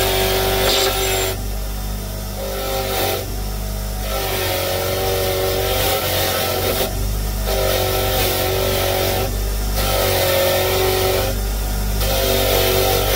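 Bench grinder running with a brass wire wheel, a small metal part worked against it in repeated passes. The motor hum is steady, while the whine and brushing hiss cut out briefly about five times.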